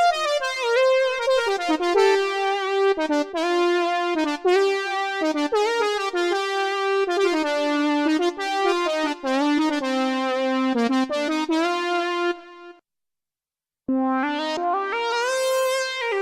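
Yamaha AN1x virtual-analog synthesizer playing a patch in chords and melody lines. The playing stops about three quarters of the way through, and after a second of silence a different patch begins.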